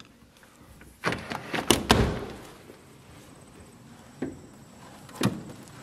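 A wooden French window being unlatched and swung open: a clatter of latch and frame knocks about a second in, then a single sharp knock near the end.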